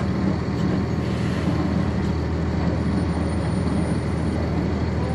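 A 1999 NovaBus RTS transit bus's Cummins ISC inline-six diesel engine running steadily at an even pitch, heard from inside the bus, with a faint high whine above it.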